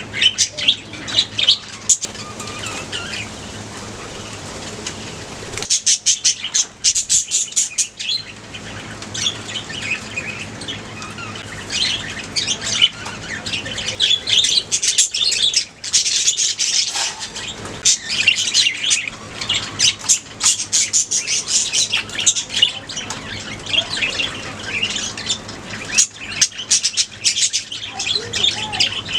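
A colony of budgerigars chattering: a dense, continuous stream of short high chirps and warbles from many birds at once.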